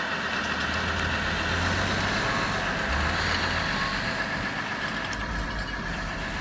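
Industrial wood grinder (mulcher) shredding storm-downed tree branches: a steady diesel engine drone under continuous grinding noise.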